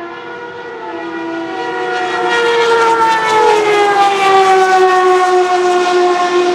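The Judd GV10 3.5-litre naturally aspirated V10 of a Lola T92/10 Group C car running at speed. It grows louder as the car approaches and passes, and its note slides steadily down in pitch over the second half.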